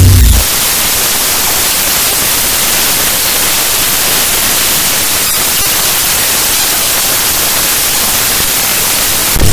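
Harsh-noise electronic music: a dense, steady wall of static hiss, brightest in the treble. A low humming drone fades out in the first half second.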